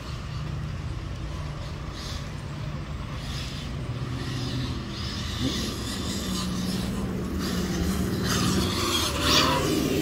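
Arrma Felony 6S electric RC car running on its brushless motor, the motor whine and tyre noise slowly getting louder, with a sharp rising whir about nine seconds in as it speeds up.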